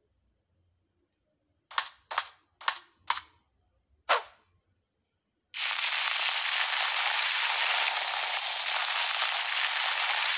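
Cartoon sound effects: five sharp snaps over about two and a half seconds, then a loud, even hiss that starts about five and a half seconds in, the sound of sand streaming out of a gourd.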